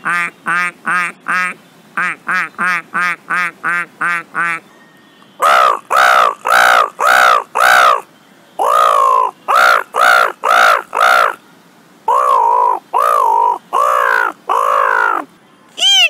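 A man imitating birds with his voice: first a duck, a fast run of short quacks, about four a second, in two bursts. After a short pause comes a crow, a series of longer, harsh caws in three runs.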